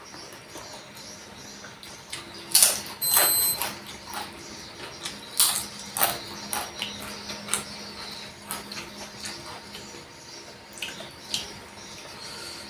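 Close-miked eating: crunchy bites and chewing, with irregular sharp crunches that come loudest a few seconds in, then quieter chewing.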